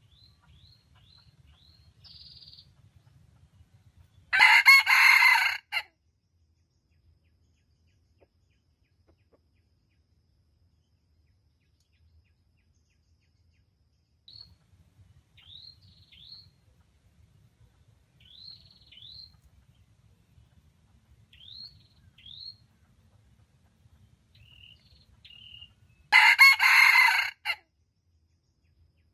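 Red junglefowl rooster crowing twice, each crow short at about a second and a half, the first about four seconds in and the second near the end. Between the crows, small birds give short, high chirps that fall in pitch, in quick little runs.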